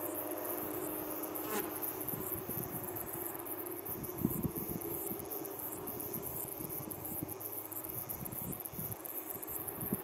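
Insects chirping in a steady high-pitched rhythm, a little faster than once a second, over a faint low rumble, with one short click about one and a half seconds in.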